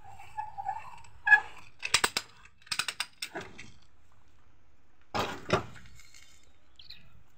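Ratchet pipe-threading die being backed off a freshly cut 2-inch uPVC pipe thread: faint plastic squeaks, then a run of sharp ratchet clicks and rattles. About five seconds in come two knocks as the die head is set down on the wooden bench.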